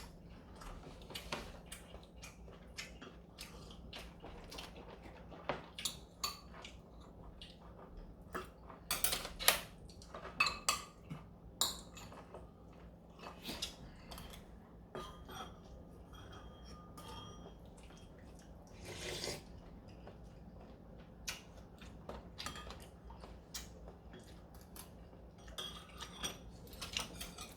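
Spoons and chopsticks clinking and scraping against bowls during a meal of galbitang and rice: irregular light clicks and clinks, some ringing briefly, with a cluster of louder clinks about a third of the way through.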